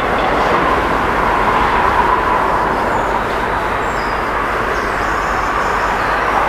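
Class 37 diesel locomotive 37401's English Electric V12 engine working hard on the climb, out of sight: a loud, steady diesel din. A few faint bird calls come through about halfway through.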